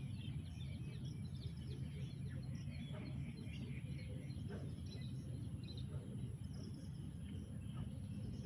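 Many short bird chirps and calls, from several birds, over a steady low rumble.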